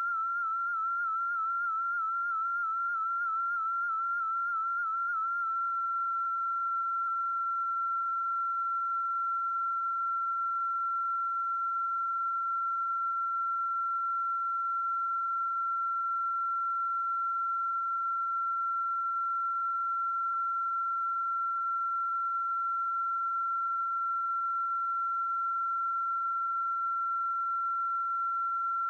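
A single high-pitched electronic tone, warbling quickly in pitch for about the first five seconds, then held steady and unchanging.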